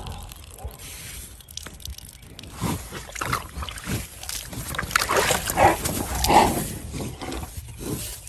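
A run of short, pitched animal calls, repeated several times, loudest about five to six and a half seconds in.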